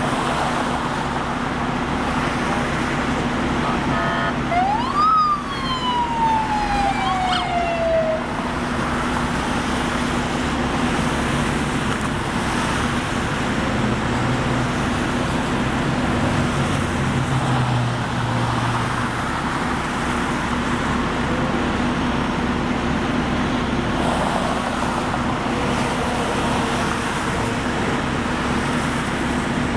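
Police car siren giving one short upward sweep and then a long falling wail, lasting about three seconds, about five seconds in. Steady highway traffic and tyre noise from cars passing below runs throughout.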